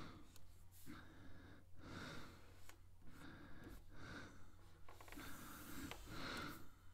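Faint breathing close to the microphone, one soft breath about every second, over a low steady hum.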